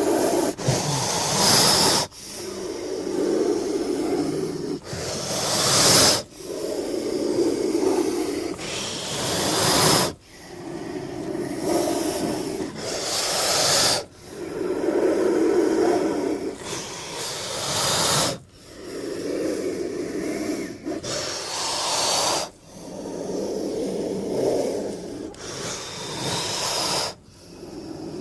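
Velociraptor sound effects: a run of about a dozen breath-like creature sounds with a hiss on top, each a second or two long, many swelling and then cutting off abruptly.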